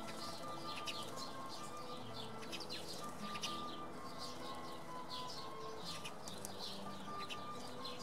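House sparrows chirping, many short quick chirps overlapping throughout, over soft background music of slow held notes.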